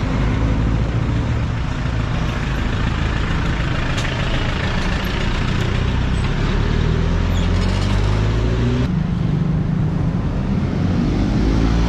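Close street traffic: vehicle engines running steadily with a low hum, as a van, cars and a motorcycle pass at walking pace. A single sharp click sounds about four seconds in.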